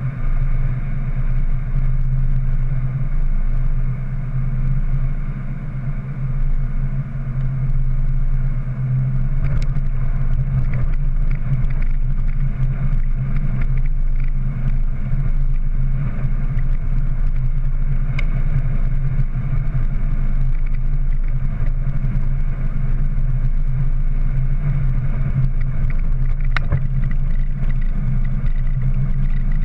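Ford Ranger pickup driving at steady road speed, heard from inside the cab: a continuous low engine and drivetrain hum with road noise, broken by a few light clicks.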